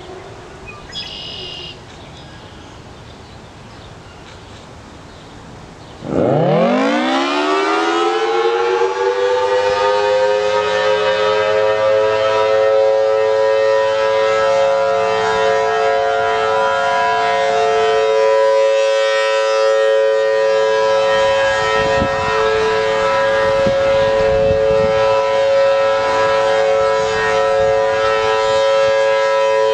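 Federal Signal Thunderbolt 1000T outdoor warning siren with a 4/5-port rotor, starting up about six seconds in: its pitch rises quickly and levels off into a loud, steady two-note wail as the horn rotates, sounding its routine monthly test.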